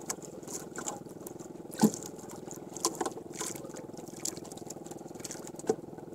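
A steady engine hum over water lapping against a small wooden outrigger canoe, with a few knocks on the hull as a handline is hauled in by hand; the loudest knock comes about two seconds in.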